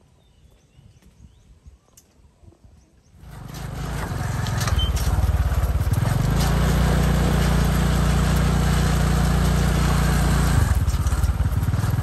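A small engine running steadily at an even pitch, coming in loudly about three seconds in after a faint start.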